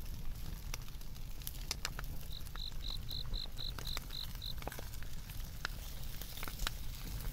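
Firewood crackling in a stainless-steel fire pit, with sharp pops scattered throughout. About two seconds in, an insect chirps in a quick, even run of about nine high pulses lasting some two seconds.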